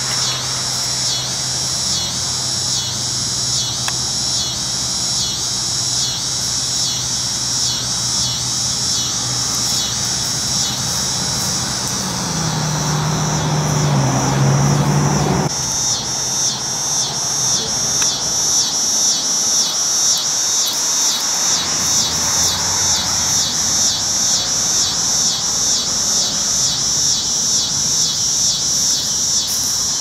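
Neotibicen winnemanna cicada calling: a loud, pulsing buzz that swells about twice a second, over a steady hum of road traffic with a vehicle rumbling past. About halfway through it changes abruptly to a louder, similar pulsing buzz from another Neotibicen cicada.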